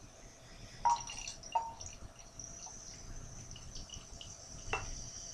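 Carbonated cider poured from a glass bottle into a glass, fizzing with a steady hiss. The bottle clinks twice against the glass about a second in, with a sharper click near the end.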